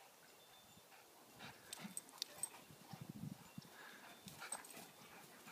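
Two dogs, a golden retriever and a black dog, tussling over a plush toy, with faint scattered whimpers and short sounds between them.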